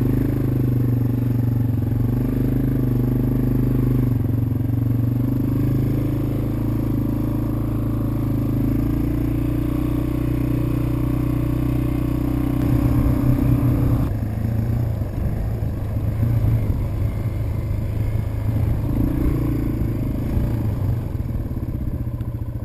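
Off-road machine's engine running under way on a rough trail, recorded from the machine itself, with clatter from the chassis. About halfway through, the engine note drops and turns choppier and more rattly.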